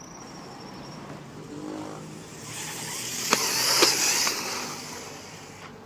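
Quanum Vandal 4WD electric 1/10 RC buggy with a 13.5T brushless motor driving off and passing close by on asphalt: a motor whirr and tyre hiss that swell to a peak about three to four seconds in, then fade away. Two sharp clicks come about half a second apart at the loudest point.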